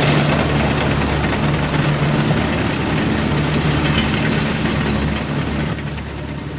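A small motor running steadily, a constant hum over a noisy mechanical whir.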